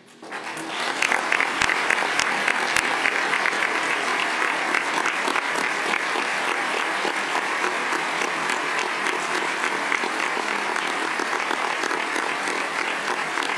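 A large audience of legislators applauding in a standing ovation: dense clapping that swells over the first second and then holds steady.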